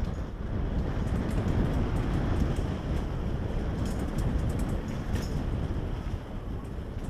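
Wind buffeting a GoPro microphone and tyres rumbling over a trail as a Specialized Demo 8 downhill mountain bike is ridden at speed, with a cluster of sharp clicks and rattles from the bike about four to five seconds in.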